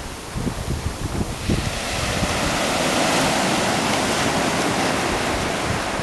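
Ocean surf: breaking waves and foaming water washing up the beach, a rush that swells about a second and a half in and then holds steady. Wind buffets the microphone at the start.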